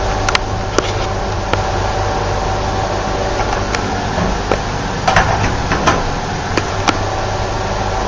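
Steady mechanical hum inside a 1975 MAN elevator car, with scattered light clicks and knocks and a short cluster of them about five seconds in.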